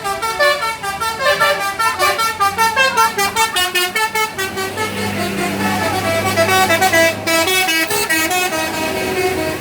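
Bus basuri 'telolet' multi-tone air horn playing a fast melody of short stepped notes, several tones sounding together, with a low steady hum underneath for a few seconds in the middle.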